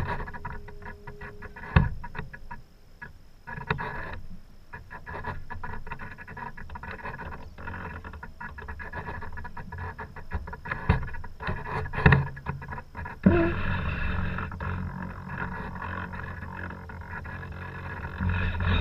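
Sailboat under way: a steady rush of water and wind, broken by several sharp knocks from the boat's hull and fittings.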